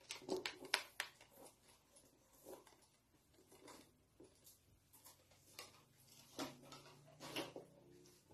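Faint, scattered clicks and rustles of a handbag being handled and slipped on over the shoulder, most of them in the first second.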